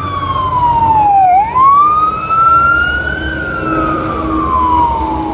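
Emergency vehicle siren in a slow wail: the pitch falls for about a second, climbs for about two seconds, then falls again near the end.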